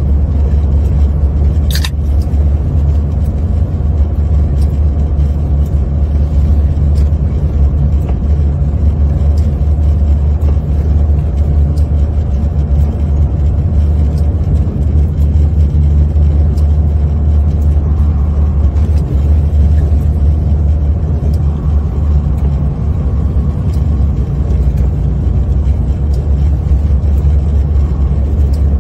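Steady low drone of a semi truck's engine and tires heard inside the cab while driving on a snow-covered road with tire chains fitted. A single sharp click comes about two seconds in.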